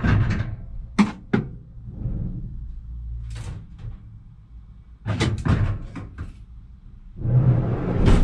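Clunks and knocks of scrap being loaded into a car: two sharp knocks about a second in, a cluster around five seconds, and a longer, louder clatter near the end.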